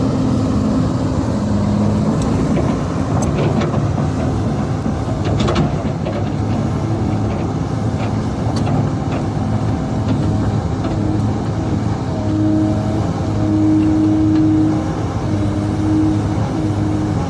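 Kobelco SK260 excavator's diesel engine running steadily under working load, with a higher hydraulic whine that comes in for a few seconds past the middle. A few sharp knocks or cracks sound in the first half.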